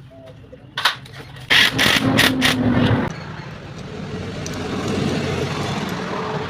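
Engine noise: about a second and a half of loud, uneven running that cuts off suddenly, followed by a steadier engine sound that swells and then eases off.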